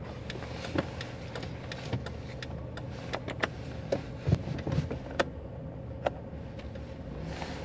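Toyota RAV4 heard from inside the cabin while driving: a steady low engine and road hum, with scattered light clicks and rattles throughout.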